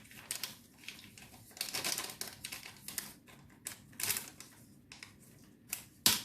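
Kitchen utensils and containers being handled while dry baking ingredients are measured into the dough: irregular light clicks, taps and short scrapes, with one louder sharp tap near the end.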